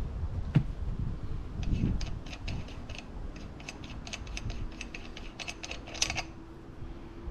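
A sharp knock about half a second in, then a run of small, quick metallic clicks as the flywheel nut on the crankshaft of a Yamaha 40 hp four-stroke outboard is handled and turned by hand. The clicks are thickest near the end.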